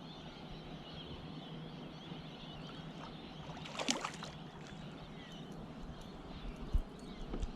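Water lapping against a kayak, with a brief splash about four seconds in and a low knock on the hull near the end.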